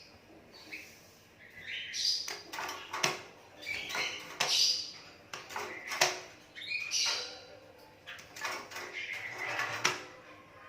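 Hand-fed Asian pied starling giving a run of short, harsh chirps and squawks, with a few sharp clicks among them.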